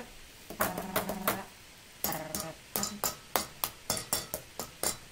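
A series of sharp clinking taps at an even rhythm, about three a second, with a short pitched tone about a second in.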